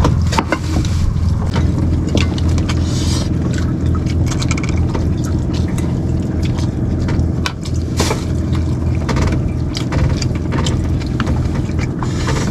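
Outrigger boat's engine running steadily, a low hum, with scattered clicks and scrapes of spoons and hands on plates and a metal pot as the men eat.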